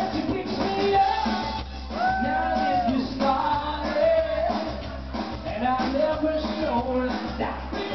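A duet of male and female singers performing a soul medley into handheld microphones, with long held notes over amplified backing music that has a steady beat.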